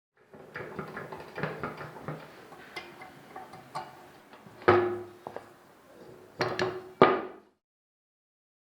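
Hard objects being handled and knocked together: a run of small knocks and scrapes with a loud clunk about five seconds in and another few close together around six and a half to seven seconds, then it stops.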